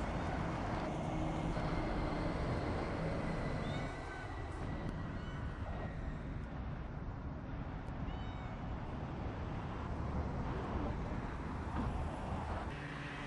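A cat meowing a few times, short and faint, over a steady low outdoor rumble.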